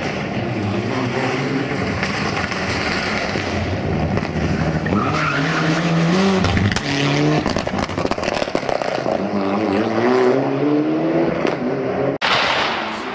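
Mitsubishi Lancer Evo rally car engine revving hard as it accelerates past, its pitch climbing and dropping back at each gear change, then climbing again. The sound breaks off suddenly about a second before the end.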